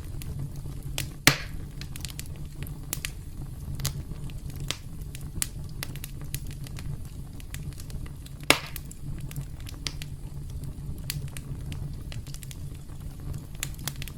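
Campfire crackling: a steady low rumble under scattered small crackles, with two loud sharp pops, one about a second in and one about eight and a half seconds in.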